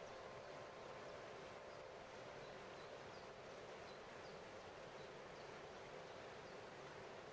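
Water cascading over stepped rock ledges: a quiet, steady rushing hiss, with faint held crystal harp tones fading underneath early on.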